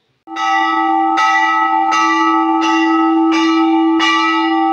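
Large hanging brass temple bell struck by hand six times in a row, about one strike every 0.7 s. Its ringing tone carries on unbroken between strikes.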